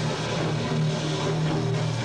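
A live heavy rock band playing loud, with distorted electric guitar and bass holding low sustained notes.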